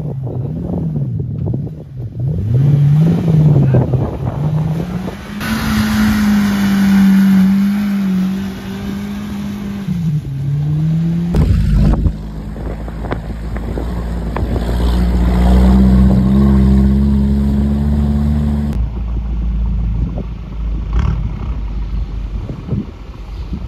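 Off-road 4x4 engines revving under load, their pitch rising and falling again and again. The sound changes abruptly three times as one driving shot gives way to another.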